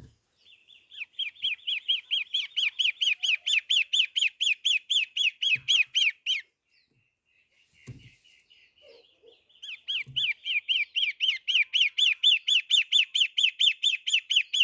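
Shrike in full song: two long runs of rapid, evenly repeated chirping notes, about five a second, with a pause of a few seconds between them.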